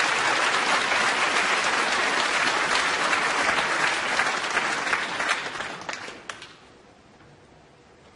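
Snooker audience applauding a completed break of 57. The clapping is dense and even, then fades out about six to seven seconds in.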